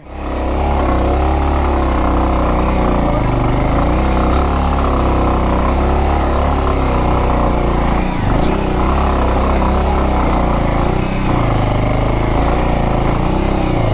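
Bajaj Avenger single-cylinder motorcycle engine running under load on an off-road climb, its pitch rising and falling with the throttle over a heavy steady low rumble.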